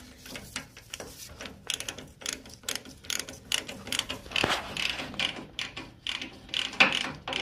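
Ratchet wrench clicking in repeated short strokes as a socket tightens the top nut on a go-kart's front steering spindle.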